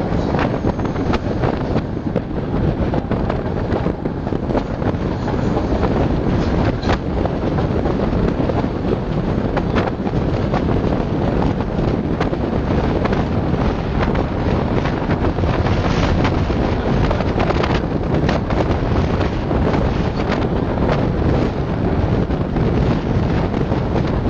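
Heavy wind buffeting a microphone held out of the window of a moving passenger train, over the running noise of the train on the rails, with a few sharp clicks scattered through it.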